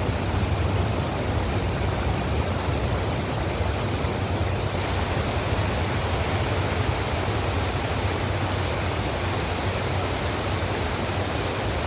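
Passenger train running by, a steady rushing noise with a low hum underneath; the hiss grows brighter about five seconds in.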